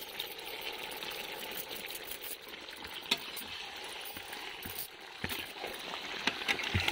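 Chicken sizzling steadily in a large kadhai as masala paste is tipped in from a plastic bowl, with a few sharp knocks in the second half as the metal spatula starts stirring.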